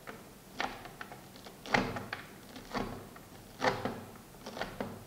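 Kitchen knife chopping a bunch of fresh fenugreek leaves on a plastic cutting board: about six separate strokes, roughly one a second.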